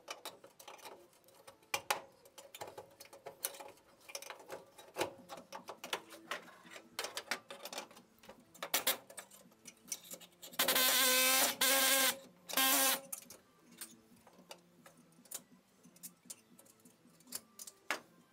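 Pneumatic air tool run in two short bursts about the middle, a steady pitched whir, amid scattered clicks and clinks of steel tools and sheet metal being handled while separating a rocker pinch weld.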